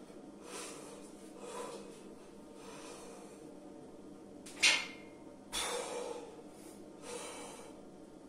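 A man breathing hard through a set of barbell bench presses: a series of short, forceful exhales about a second apart. The loudest and sharpest, about four and a half seconds in, has a thin whistling squeak like a deflating balloon.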